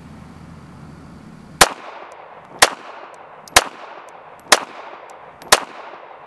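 Beretta 80X .380 ACP pistol firing five shots at an even pace, about one a second, starting a little over a second and a half in; each sharp crack is followed by a brief echo.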